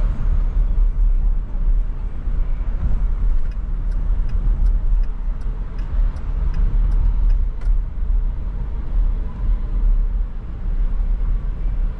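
Steady low rumble of a car driving through city streets. From about three and a half to seven and a half seconds in, there is a run of light high ticks, about three a second.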